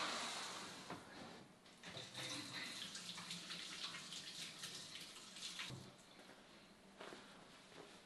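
Water running from a kitchen faucet into the sink, with hands rinsing under the stream; faint, and quieter in the last couple of seconds.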